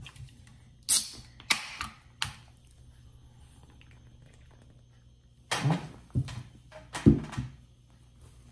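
Handling noise of a snack bag and an aluminium beer can: three sharp crinkling clicks in the first couple of seconds, a quiet stretch while the can is drunk from, then a few low thumps near the end.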